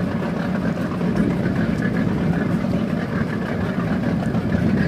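Tour boat's engine running steadily: an even, low drone heard from on board.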